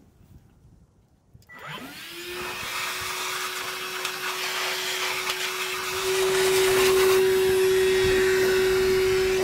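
Cordless wet/dry shop vacuum switched on about a second and a half in, its motor whining up to a steady high hum over a rush of air, louder from about six seconds in. The vacuum's outlet is blowing debris off a carburetor.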